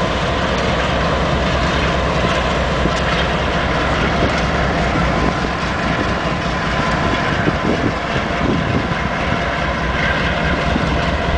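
CSX diesel freight locomotives running steadily as a slow freight train of loaded flatcars rolls by, a continuous low engine drone mixed with rolling-stock noise.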